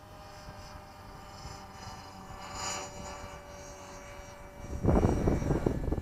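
Tarot 450 RC helicopter's electric motor and rotor whining steadily at a distance, briefly louder about halfway through. About five seconds in, gusting wind buffets the microphone in a loud, fluttering rumble.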